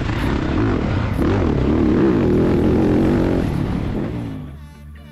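Motocross bike engine heard from onboard, revving up and easing off through the turns, then fading away near the end.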